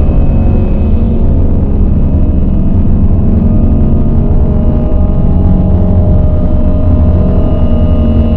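Dark ambient drone music: a loud, dense low rumble with several steady held tones above it.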